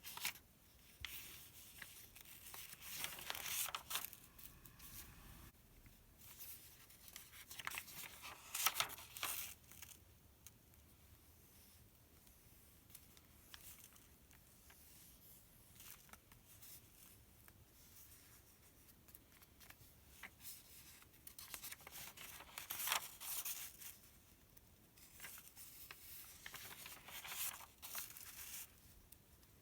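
Pages of a paper sales circular being turned and handled close to the microphone, in several crisp rustling bursts a few seconds apart, with quiet stretches between.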